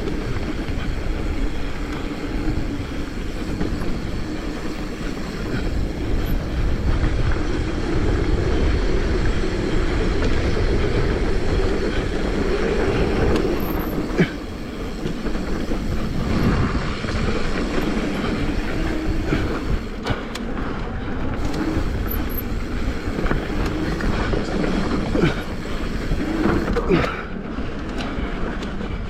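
Mountain bike riding fast over a rough dirt trail, heard through an action camera's microphone: a steady rumble of wind and tyres on dirt, with rattling from the bike and sharp knocks over bumps.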